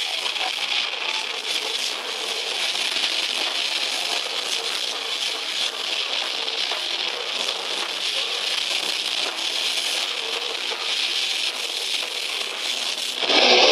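Death metal band playing live, heavily distorted electric guitars through Marshall amps, recorded from the crowd as a dense, overloaded wash with little clear pitch. It gets suddenly louder near the end.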